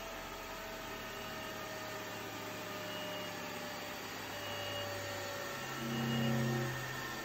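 Jakobsen SJ-12 surface grinder's grinding wheel and spindle coasting down after switch-off: a steady whir whose tones slowly fall in pitch, letting the spindle bearings be heard. A deeper hum swells and fades about six seconds in.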